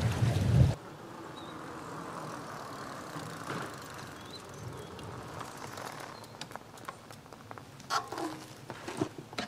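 Wind buffeting the microphone over lapping lake waves, cut off under a second in. Then a loaded Boucou fat-tyre e-bike rolls faintly over a concrete driveway, with a few clicks and knocks near the end as the rider swings off it, the sharpest right at the close.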